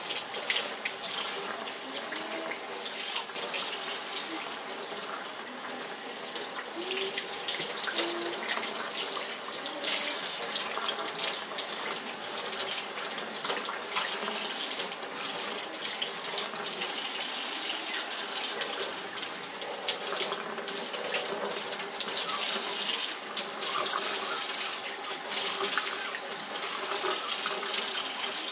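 Kitchen faucet running a steady stream of water that splashes over a puppy's fur and the bather's hands into a stainless steel sink.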